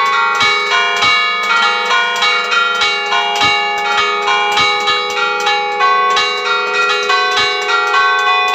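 Church bells rung close up in the belfry: a quick run of strikes, several a second, on bells of different pitches, over the steady hum of the bells ringing on.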